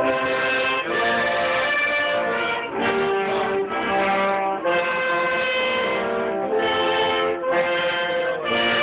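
Brass band playing a slow tune in long held chords that change every second or two, with short breaks between phrases.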